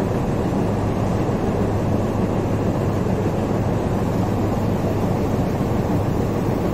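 A steady low rumble and hum of running machinery, unbroken and without change.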